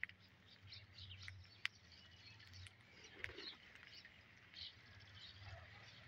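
Faint, scattered chirps from a feeding flock of rose-ringed parakeets and sparrows, with a few sharp ticks of beaks pecking rice grains off concrete; the loudest tick comes about one and a half seconds in.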